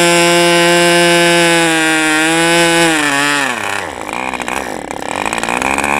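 OS model-aircraft glow engine on a test stand running steadily at full throttle, then about three seconds in its speed drops and it sags into an uneven, surging run. The owner takes this as a sign that the high-speed needle needs adjusting.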